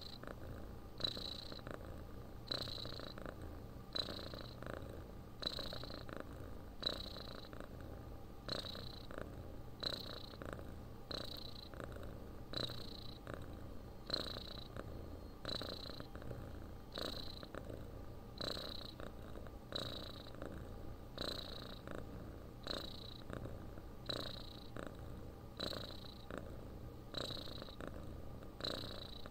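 Domestic cat snoring and purring in its sleep: a steady rhythm of breaths about every second and a half, each with a short high whistle, over a continuous low purr.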